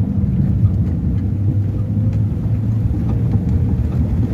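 Motorboat engine running steadily under way, a constant low hum, with water rushing past the hull.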